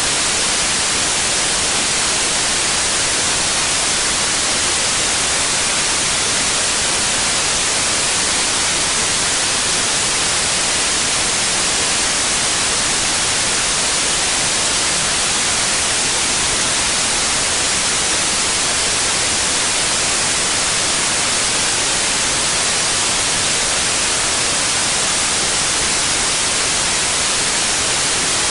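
Steady, unchanging white noise, a loud even hiss weighted toward the high end.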